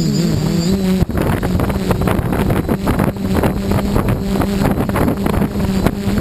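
450-size quadcopter's electric motors and propellers humming at a steady pitch, heard from the craft's own camera with wind buffeting the microphone. The sound dips briefly about a second in.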